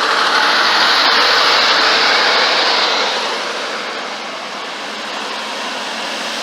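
A truck driving past, its engine and tyre noise swelling over the first three seconds and then fading away.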